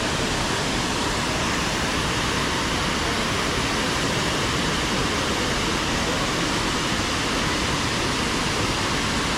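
Mountain creek waterfall rushing, a steady, unbroken roar of falling water.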